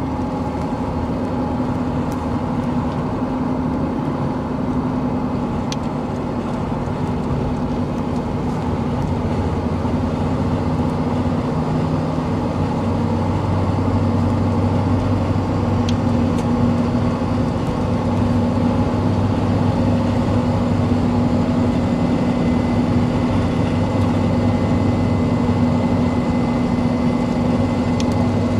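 Toyota 1KZ-TE 3.0 L four-cylinder turbo-diesel in a Prado running on the move, with a ticking that the owner is worried about, over a hum of road noise from mud-terrain tyres. The note shifts and gets a little louder about halfway through.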